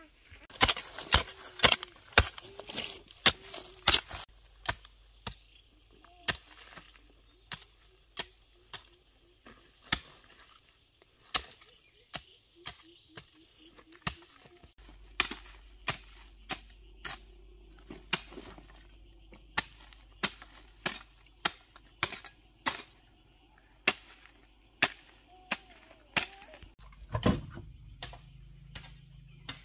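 Repeated sharp chopping strikes of a hand tool cutting into soil and brush, several a second at first, then about one a second.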